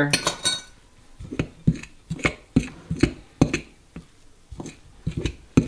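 Metal fork clinking and scraping against a mixing bowl as it cuts water into crumbly pie-crust dough, in short irregular strokes about three a second.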